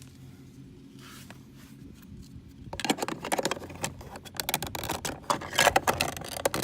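Plastic interior door trim being handled and fitted against the door panel: a quick, irregular run of clicks, taps and scrapes that starts about three seconds in.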